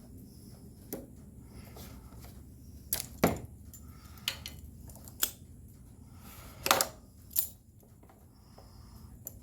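Small hand tools and parts being handled and set down: a series of sharp clicks and light knocks, about seven of them, the loudest about three seconds in.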